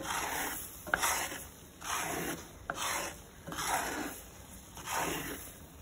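Wooden spatula scraping and stirring a bubbling roux of butter, sausage fat and flour around a frying pan, in about six strokes a little under a second apart, with a few light taps against the pan. The roux is cooking out the raw flour before the milk goes in.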